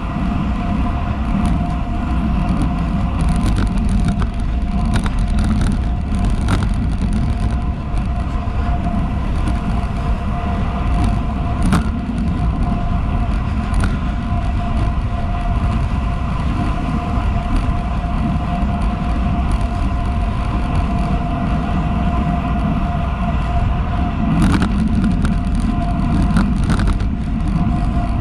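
Wind rushing over a GoPro HERO 7's microphone and tyre noise of a road bike on Roval Rapide CLX 50 carbon wheels rolling on asphalt at about 37 km/h. A steady whine runs under it, with scattered light clicks and rattles from the bike.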